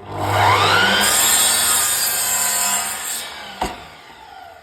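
Electric mitre saw starting with a rising whine, cutting through a wooden fence for about two seconds, then spinning down, with a click as it slows.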